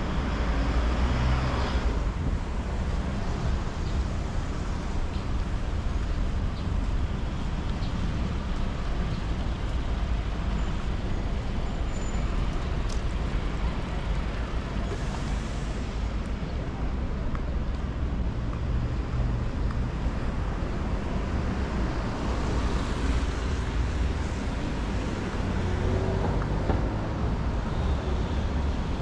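Street traffic noise: a steady rumble of cars and buses on the road alongside, with vehicles passing a little louder about halfway through and again later.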